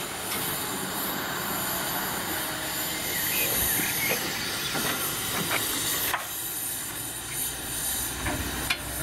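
Steam locomotive standing with a steady hiss of escaping steam, with a few light knocks.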